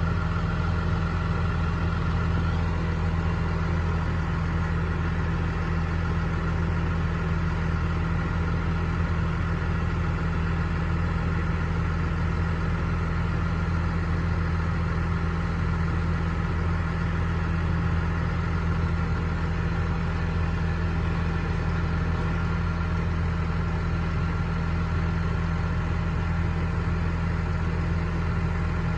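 Deutz-Fahr Agrotron 6180 tractor's six-cylinder diesel engine idling at a steady, low pitch.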